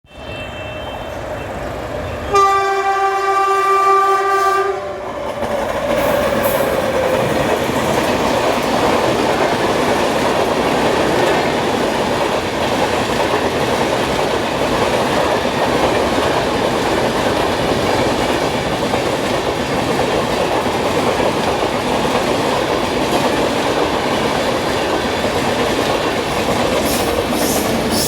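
Electric locomotive's horn sounds once for about two seconds a few seconds in, then the Rajdhani Express passes through the station at speed without stopping: a steady loud rush of coaches and wheels on the rails.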